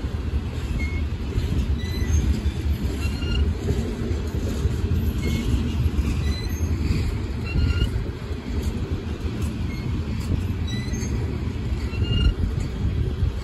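Coal train's freight cars rolling past, a steady low rumble of steel wheels on rail, with short high-pitched wheel squeals every second or so.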